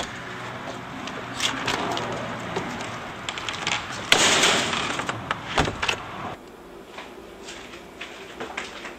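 A door being opened and shut, with handling clicks, a louder rush of noise about four seconds in and a sharp thump at about five and a half seconds. All of this sits over a steady background hiss that drops away after about six seconds.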